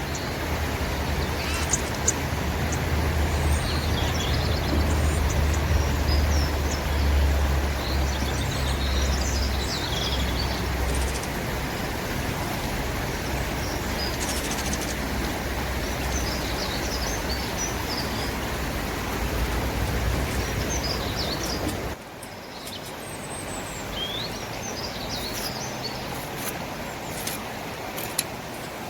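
Small birds chirping and twittering over a steady outdoor rumble and hiss. The low rumble is strongest in the first ten seconds or so, and the background noise drops abruptly about two-thirds of the way through while the chirps go on.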